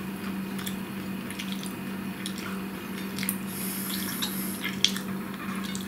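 Wet, clicking chewing sounds from a person eating close to the microphone, over a steady low hum. One sharper click stands out near the end.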